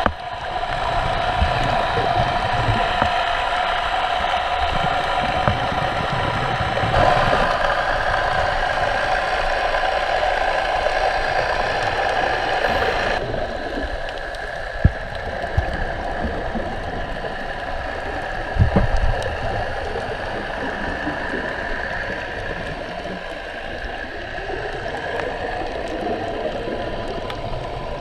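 Underwater sound: a steady mechanical hum with bubbling and hiss, heard through the water. Its pitch and level shift abruptly twice, and there are a few short knocks in the second half.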